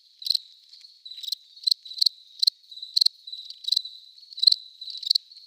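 Crickets chirping: high, sharp chirps repeating irregularly, two or three a second, over a faint steady trill.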